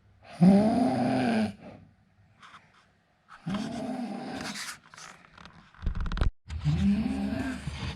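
A man snoring in his sleep: three drawn-out snores about three seconds apart, each with a tone that rises and falls, and a brief low rattle just before the third.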